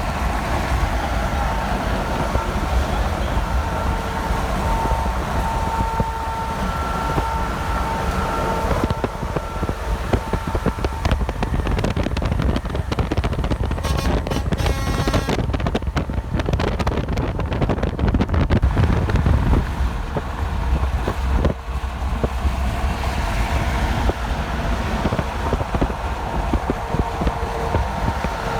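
Steady highway traffic noise: a continuous low rumble of vehicles on the road, with wind on the microphone. Faint steady whining tones run through the first third and return near the end.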